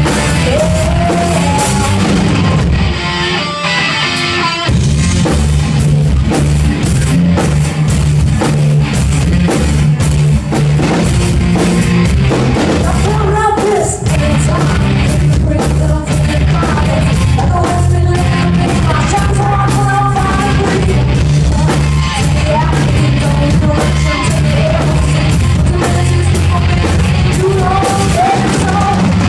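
Rock band playing live: electric guitars, bass guitar and drum kit with sung vocals. About three seconds in the bass and drums drop out for under two seconds, then the full band comes back in.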